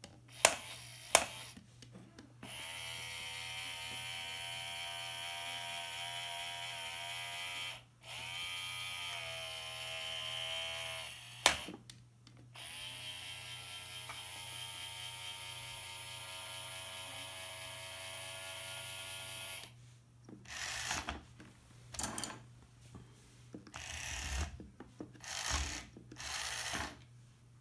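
Small electric gear motors of Rokenbok radio-controlled toy construction vehicles whining in long steady runs, with a few sharp clicks near the start. In a stretch between the two long runs the pitch sags and rises. Near the end the motors run in short stop-start bursts.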